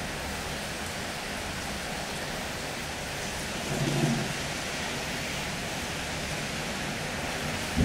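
Steady hiss of falling rain, with a brief low rumble about four seconds in.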